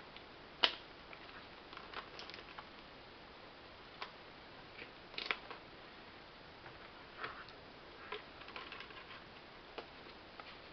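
Scattered light clicks and taps from test equipment being handled and set down on a desk, the sharpest about a second in, over a faint steady room background.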